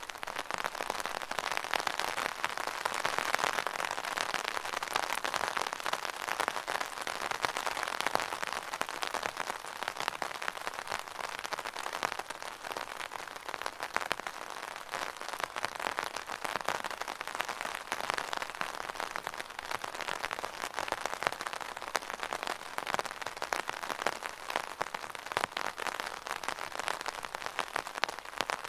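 Rain falling on an umbrella: a dense, steady patter of countless small drop hits, swelling a little now and then.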